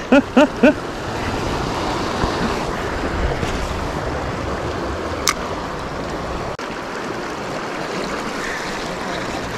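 Creek water running over a shallow rocky riffle, a steady rushing, with a single sharp click about five seconds in.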